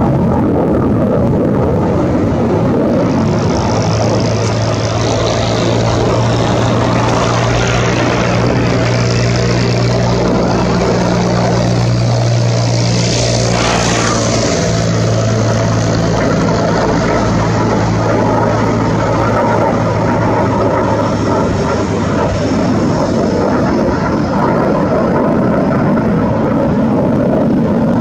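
JF-17 Thunder fighter jet flying past with its single RD-93 turbofan running: a loud, continuous jet noise with a steady low hum and a high whine, both strongest about halfway through as the jet passes closest.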